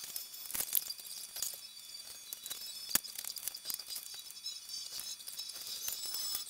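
Room sound of people handling things at a table, fast-forwarded about twenty times: a busy jumble of quick clicks and high-pitched squeaky chirps.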